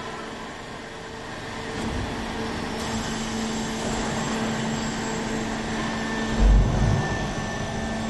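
Baler running with a steady hum while a plastic-bagged bale is handled, and a dull thump about six and a half seconds in.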